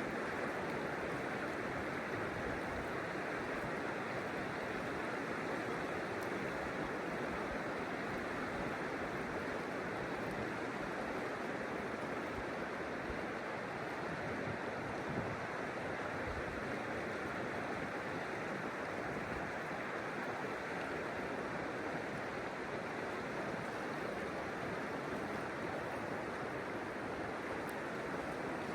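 River water rushing with a steady, even noise that never lets up.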